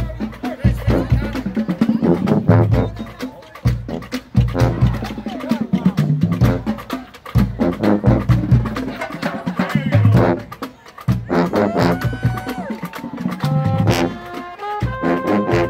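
Drum and bugle corps brass and percussion playing at full volume: marching contrabass bugles and the rest of the horn line over repeated drum hits. The horns settle into long held chords over the last few seconds.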